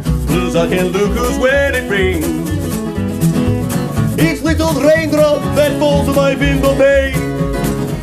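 Live old-time swing-blues band: upright bass and acoustic guitar keep the beat under a wordless vocal solo, the voice sliding between notes.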